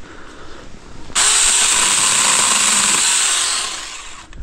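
Cordless Seesii mini chainsaw starting suddenly about a second in, running steadily for about two and a half seconds, then winding down.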